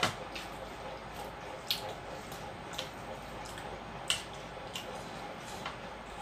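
Wet eating sounds of rice and gravy being mixed and eaten by hand: short, sharp squishy smacks and clicks about every half second to second over a steady background hiss. The loudest come at the very start and about four seconds in.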